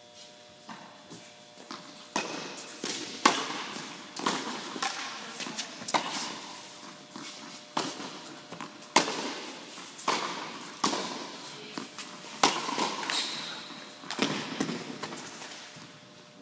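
Tennis ball struck by racquets in a rally and bouncing on the hard court: sharp pops about once a second, starting about two seconds in, each with a short echo from the large indoor hall.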